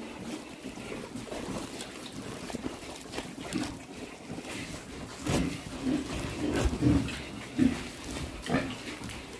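Young pigs, about two months old, grunting as they feed at a trough. The grunts are scattered at first, then come thicker and louder in the second half.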